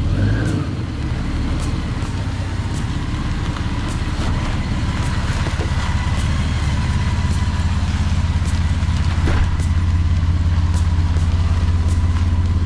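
Toyota LandCruiser 4WD engine rumbling at low revs as it crawls slowly through a deep rutted dirt washout. The rumble grows louder from about halfway through as the vehicle comes up beside the microphone.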